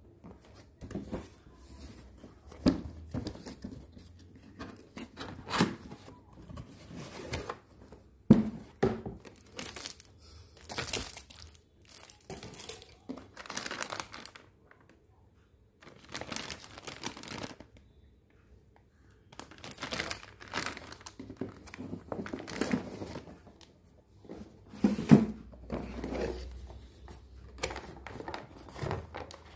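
Unboxing sounds: a plastic anti-static bag crinkling and cardboard box packaging being handled, in irregular rustling bursts with a few sharp knocks, the loudest about 8 and 25 seconds in.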